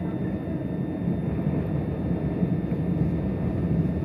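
Steady low rumble of a c2c electric passenger train running along the track, heard from inside the carriage.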